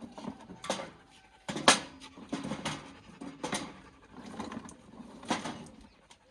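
Pieces of firewood being handled: a handful of separate sharp wooden knocks with scuffing between them, the loudest about a second and a half in.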